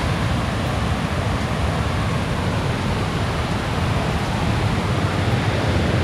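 Steady rush of a waterfall and fast river water, an even noise with no pauses or distinct events.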